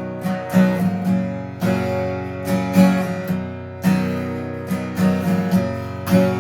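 Acoustic guitar strummed in a steady rhythm, its chords ringing between strokes: a song's opening before the vocal comes in.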